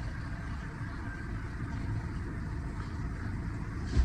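Steady low background rumble, with a single thump near the end.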